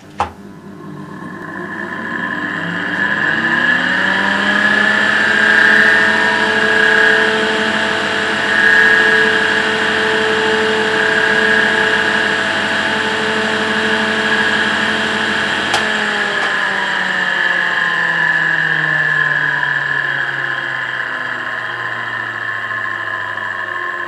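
EBM-Papst 4656 ZWU 230 V AC axial fan switched on with a click, spinning up over a few seconds and running loudly with a rough, whining, grinding noise from its bad bearings. About 16 seconds in there is another click, its hum stops and the pitch slowly falls as the fan slows down, the bearing noise still there.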